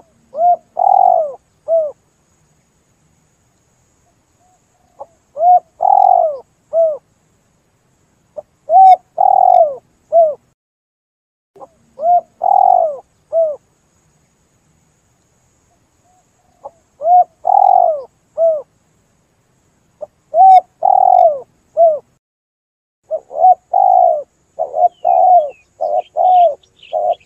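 Spotted dove (tekukur) cooing: short phrases of three or four coos, each falling slightly in pitch, repeated every few seconds with silent gaps. Near the end the bird breaks into a quicker, near-continuous run of coos, with faint higher chirps of another bird.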